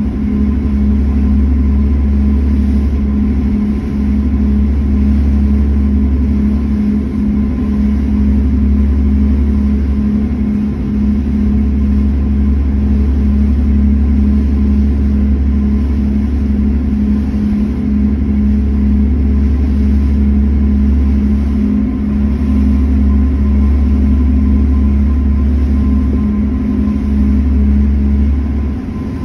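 Passenger ferry's engines running, a loud steady low drone with a constant hum. Near the end the low drone and hum drop away.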